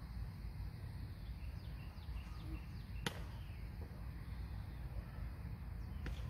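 A single sharp crack about three seconds in, with a fainter click near the end, over a steady low rumble and faint high chirping of birds.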